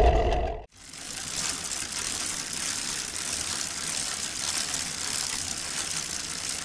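Traffic and road noise fades out within the first second. After a brief break, a steady, fine, hissing rattle follows.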